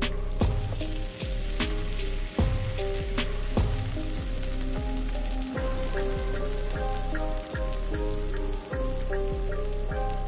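Food sizzling as it fries, under background music with a steady beat.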